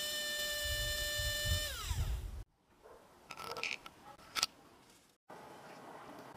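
A small metal gear motor with a threaded rod on its shaft runs on battery power with a steady high whine. Its pitch falls away as it spins down shortly before 2 s. Then come a few light plastic clicks as the motor is handled and fitted into a PVC plate.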